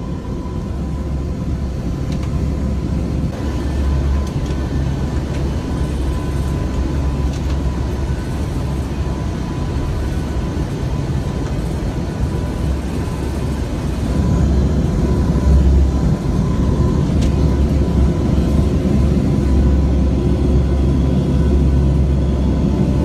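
Turboprop engines of a NOAA WP-3D Orion hurricane-hunter plane heard from inside the cabin: a steady, heavy low drone with a held hum above it. It grows louder about halfway through.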